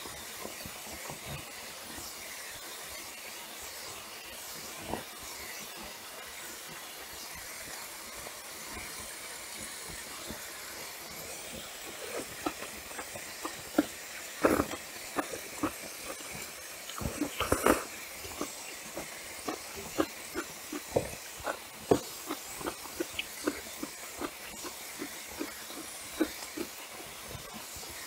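Close-miked eating sounds of bibim naengmyeon (spicy cold noodles) over a steady hiss. Only the hiss for the first twelve seconds or so, then chewing and mouth clicks, a few to several a second, with two louder bursts about halfway through.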